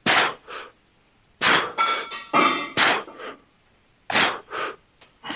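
Metal gym weights clanking: a series of sharp clanks about a second apart, some in quick pairs, one ringing out briefly about two seconds in.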